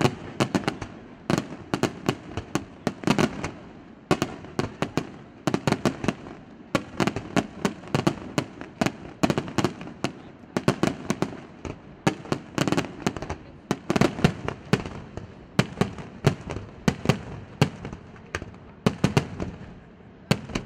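Aerial firework shells bursting in rapid succession: many sharp bangs in quick clusters, one after another.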